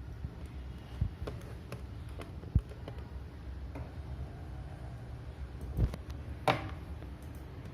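Small clicks and taps of a screwdriver and loose screws against a laptop's display panel and frame as it is being unscrewed, with a few sharper knocks, over a low steady hum.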